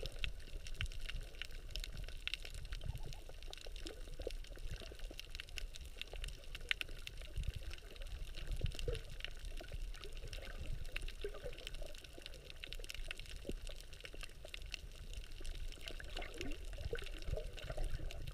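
Underwater ambience over a coral reef: a steady low rumble of moving water, with a constant scatter of small clicks and crackles.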